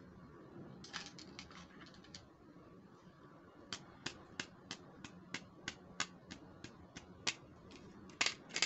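Plastic bristles of a toy hairbrush flicked by a fingertip, making sharp clicks: a short cluster about a second in, then a steady run of about three clicks a second, and a louder quick flurry near the end.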